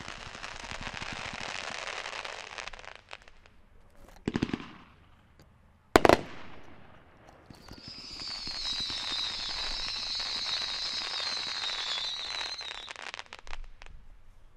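Dominator "192 Proof" 500-gram consumer firework cake firing. Dense crackling for a few seconds gives way to a couple of bangs, the loudest a sharp report about six seconds in. Then comes a longer stretch of crackle with a shrill high tone over it that dips slightly in pitch.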